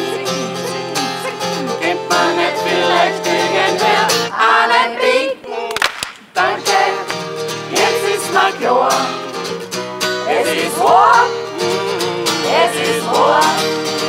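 A group of voices singing along to a strummed acoustic guitar, with a brief break about six seconds in.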